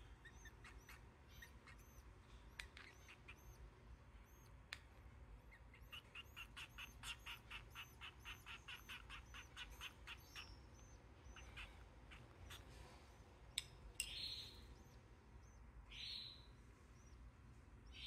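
Faint, high begging cheeps of nestling finches, with a fast, even run of chirps at about four a second from around six to ten seconds in. Near the end come two short, soft rustling noises.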